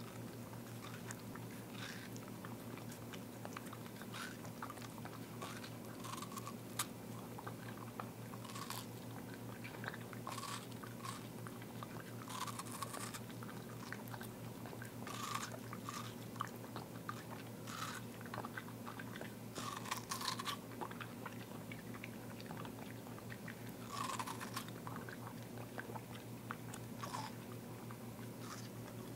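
Boston Terrier biting and chewing a slice of watermelon held in someone's hands, with wet crunches of the flesh and rind at irregular intervals. A steady low hum runs underneath.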